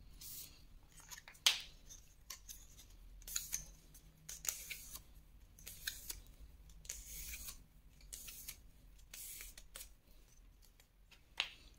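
Thin white paper strips rustling and crackling in short, scattered bursts as they are bent and curled by hand into a curve.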